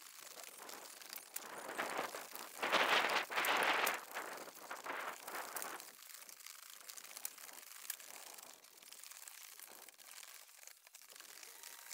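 Old asphalt shingles being scraped and torn off a roof deck: a rough tearing and crunching that swells to its loudest about three seconds in, then falls back to scattered scraping and a few faint knocks.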